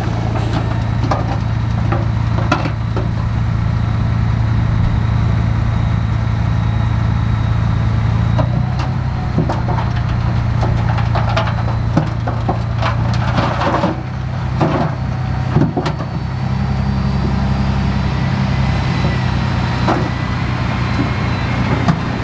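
Diesel engine of a heavy earthmoving machine running steadily, with scattered sharp knocks and clanks over it; the engine note shifts about two-thirds of the way through.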